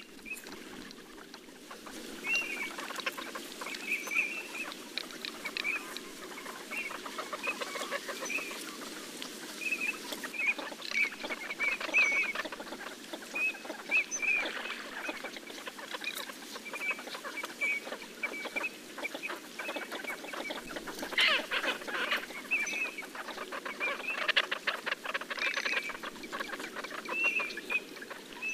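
A flock of Eurasian teal calling: the drakes' short, high whistled 'krik' notes repeated in quick clusters, over a continuous low chatter from the flock.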